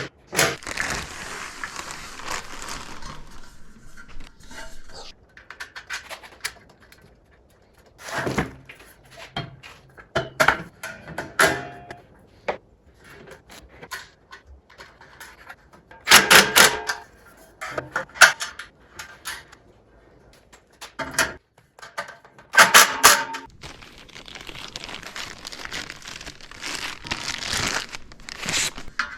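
Scattered knocks and clatter from parts of a DeWalt DW7350 planer stand being handled and fitted during assembly, with stretches of rustling between them.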